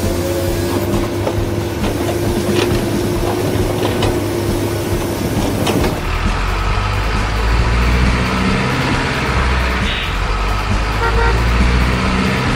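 Truck engine sound with a long, steady horn note over it. About six seconds in the sound changes abruptly to a deeper, steady engine rumble.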